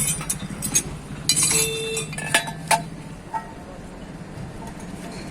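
Metal tools and parts clinking and knocking, several sharp clinks in the first three seconds, over a low pulsing hum.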